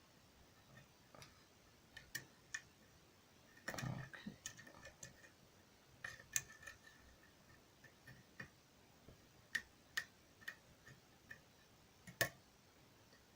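Faint, irregular metallic clicks and light scrapes of a lock pick working the pins inside a pin-tumbler lock during single-pin picking, with a tension wrench holding the core; the sharpest clicks come about six and twelve seconds in.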